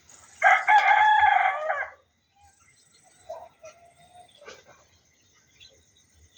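A rooster crowing once, a single loud crow about a second and a half long, followed by faint short chirps.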